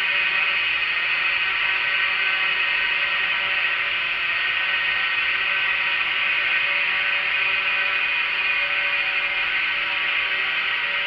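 Small two-stroke Yamaha moped engine buzzing at steady high revs while cruising, its sound echoing off the walls of a road tunnel.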